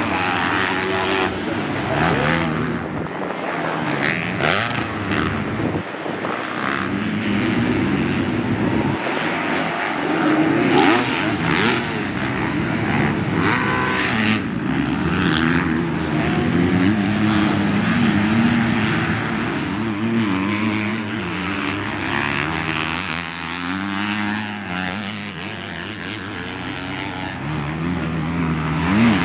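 Four-stroke motocross bikes revving hard as they ride the track, engine pitch rising and falling over and over as the throttle is opened and chopped, with more than one bike heard at times.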